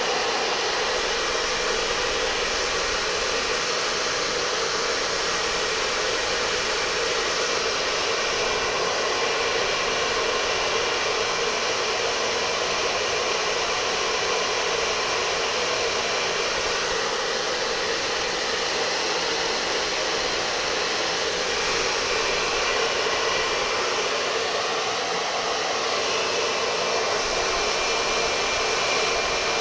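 Steady rush of air from an electric blower, with a faint motor whine, blowing onto a long grey T-shirt and making it flap.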